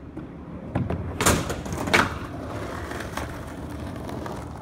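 Skateboard knocks and a hard landing clack about two seconds in, followed by the wheels rolling away over rough pavement with a couple of light clicks.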